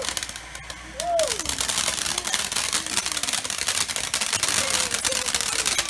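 Small ground firework crackling: a dense, rapid run of sharp pops that drops away briefly at the start and picks up again about a second in.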